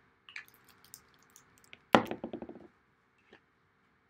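Handling noises of paper-crafting supplies on a desk: a few light taps and clicks, then one sharp knock about two seconds in followed by a brief rattle.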